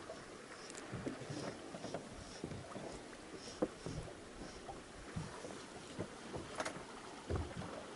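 Quiet sounds aboard a small fishing boat: scattered, irregular light knocks and taps over faint water and wind noise.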